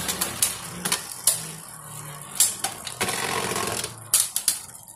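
Two Beyblade Burst spinning tops whirring and rattling across a plastic stadium floor, with several sharp clacks as they strike each other and the stadium wall, a quick cluster of them near the end.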